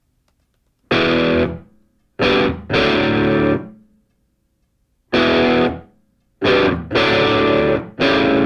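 Rock music: distorted electric guitar playing a stop-start riff, about seven loud chords each held for a half to one second and cut off, with silent gaps between them.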